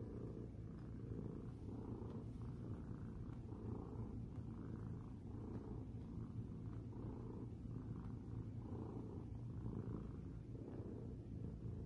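A domestic cat, an orange tabby, purring steadily, its purr swelling and easing in a slow rhythm about every three quarters of a second with each breath in and out.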